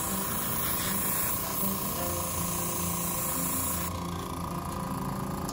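Central Pneumatic airbrush hissing steadily as it sprays leather dye, the hiss dropping away about four seconds in, with the kit's air compressor humming underneath.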